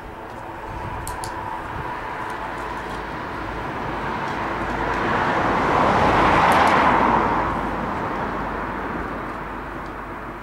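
A road vehicle passing by: its noise swells gradually to a peak about six to seven seconds in, then fades away.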